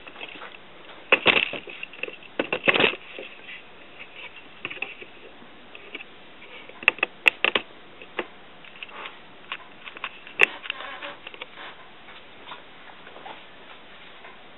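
Small wood fire burning in a homemade tin-can wood gas stove, crackling with scattered sharp pops and ticks over a faint hiss, the two loudest clusters near the start.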